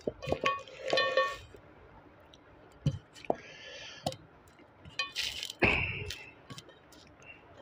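Eating by hand from a steel plate: fingers mixing rice and chutney, with scattered small clicks and chewing sounds. About a second in, a short ringing clink comes from the steel plate.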